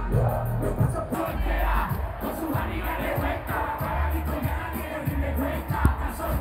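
Live reggaeton blasting from a stadium sound system with heavy bass, and a large crowd shouting and singing along close around.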